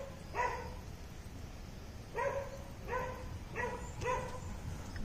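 A dog barking repeatedly, about five short barks at uneven intervals.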